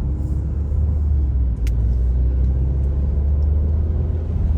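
Car driving, heard from inside the cabin: a steady low rumble of engine and road noise, with one brief click about a second and a half in.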